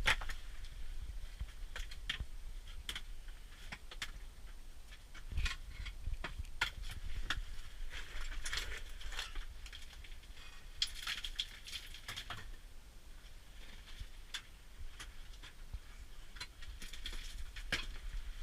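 Footsteps with irregular small knocks, clicks and scrapes, as people move and handle gear in a narrow mine passage.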